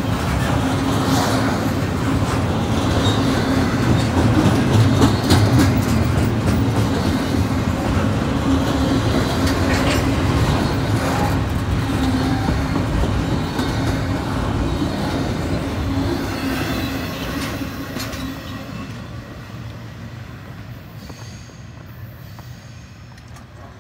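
Norfolk Southern double-stack intermodal freight cars rolling past over a grade crossing, wheels clattering on the rails with a steady low hum, the train braking as it comes down the grade. The noise fades away after about 18 seconds as the end of the train passes and recedes.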